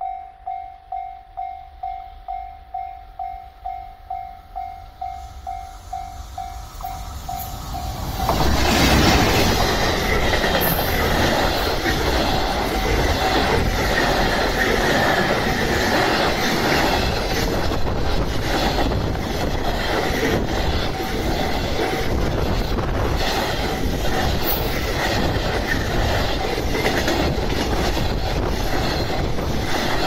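Japanese level-crossing warning bell dinging about twice a second. About eight seconds in, an electric-hauled container freight train reaches the crossing and its wagons pass close by, a loud steady rush with wheels clattering over the rails that drowns the bell.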